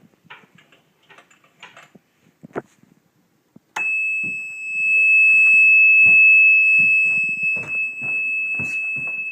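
Small battery-powered buzzer in a simple switch circuit giving a steady high-pitched tone, which comes on suddenly about four seconds in when the cord-and-pulley rig pulls its switch. A few light knocks and rustles come before it, and dull knocks continue under the tone.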